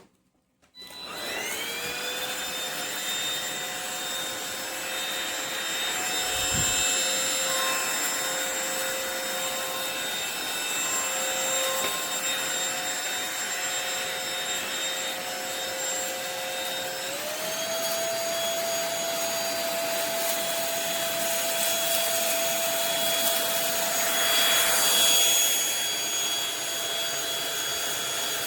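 Cordless stick vacuum cleaner switched on: its motor spins up with a rising whine within the first second or two and runs steadily. About two-thirds of the way through, the whine steps up to a higher pitch and holds there.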